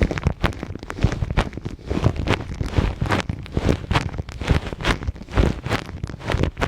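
Hands rubbing, pressing and brushing right against a microphone in an ASMR ear massage: a dense, irregular run of scratchy rustles and soft thuds, several a second.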